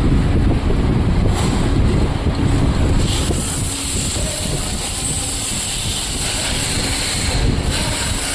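Royal Enfield Meteor 350's single-cylinder engine running steadily, with wind noise on the microphone.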